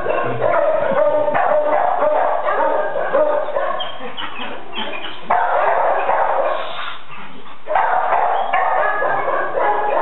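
Many impounded dogs barking and yelping together, a dense overlapping din of short calls with sudden jumps in loudness about five and eight seconds in.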